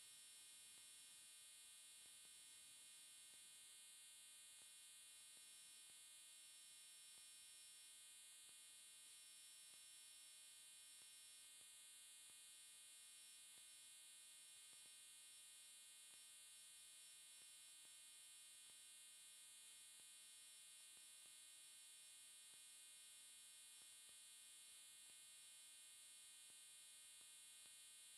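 Near silence: only a faint, steady electronic hum and hiss, with no sound of the sand being crumbled.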